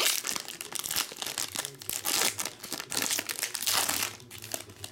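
Foil wrapper of a Topps Tier One baseball card pack being torn open and crumpled by hand: a run of crinkling, crackling rustles, louder about two seconds in and again around three and a half seconds, dying away near the end.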